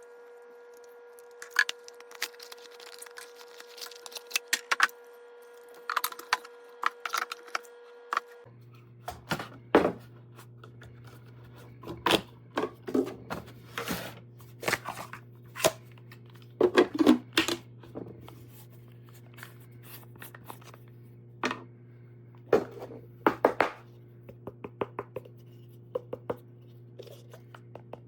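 Handling noises: irregular clicks, taps and light knocks as packaging and plastic parts of the cold brew coffee maker are handled, over a steady faint hum that changes pitch abruptly about eight seconds in.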